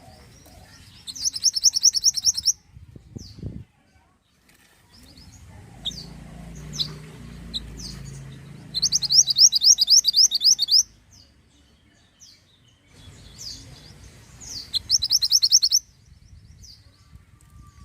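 Mantenan bird singing: three loud, fast trills of rapidly repeated high notes, each about a second and a half long and several seconds apart, with scattered single high chirps in between.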